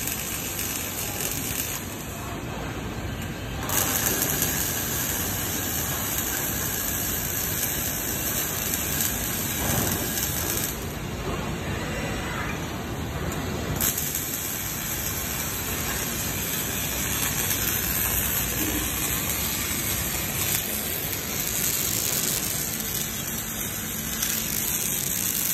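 Robotic arc welding: a steady, frying hiss from the welding arc, which cuts out twice for a couple of seconds.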